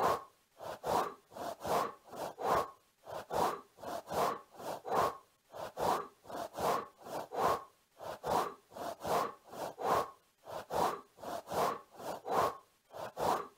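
Looped butterfly wing-flap sound effect: soft papery swishes repeating steadily, about three a second, often in pairs.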